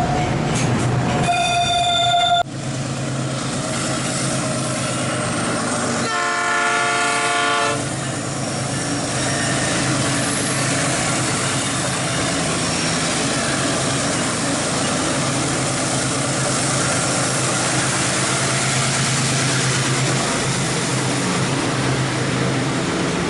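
Diesel freight locomotive running with its train on the rails, a steady low engine drone throughout. The horn sounds briefly about a second and a half in, cut off abruptly, and again for about two seconds around six seconds in.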